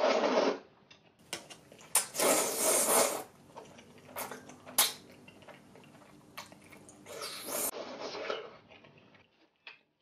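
Thick udon noodles slurped in several long, noisy pulls, with wet mouth sounds and a couple of sharp clicks between the slurps.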